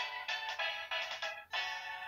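Sanyo au C411ST flip phone playing one of its built-in ringtone melodies: a quick run of bright electronic notes, with a short break about one and a half seconds in.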